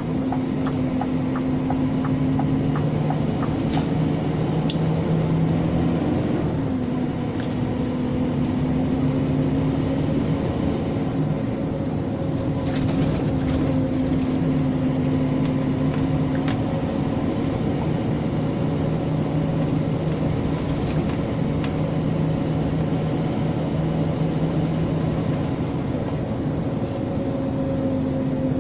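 Cab interior of a Scania G460 truck under way with a heavy load: its six-cylinder diesel runs steadily over road noise, with a few faint clicks and rattles. The engine note drops and picks up again about six seconds in.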